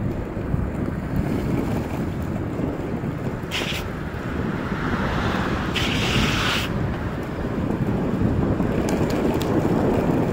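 Wind buffeting the microphone over the steady low rumble of skateboard wheels rolling downhill on asphalt, with a brief hiss a few seconds in and a longer one about six seconds in.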